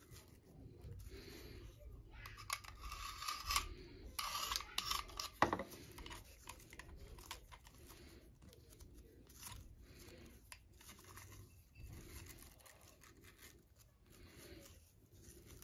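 A blade cutting through tangled hair on a vacuum brush roll and the hair being pulled and torn free, in short irregular rasping strokes. They are loudest between about two and a half and five seconds in, with a sharp click at about five and a half seconds.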